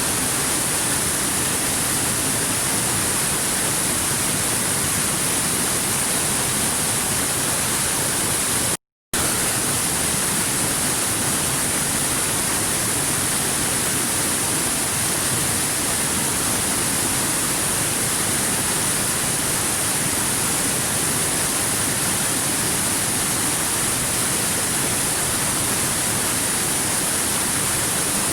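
Stream water rushing steadily over rocks, an even hiss brightest in the high treble. It drops out to silence for a split second about nine seconds in.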